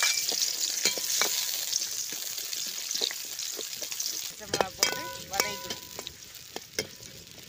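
Sliced shallots sizzling loudly in hot oil in an aluminium pan, the hiss fading as they begin to cook. A metal ladle stirs them, clicking and scraping against the pan with a brief metallic ring about five seconds in.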